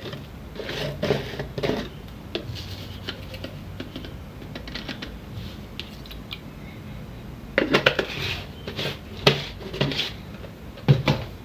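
Light clinks, taps and scrapes of kitchen utensils and containers handled at a cooking pot while salt and oil are added, with a busier run of sharp clicks a little past the middle.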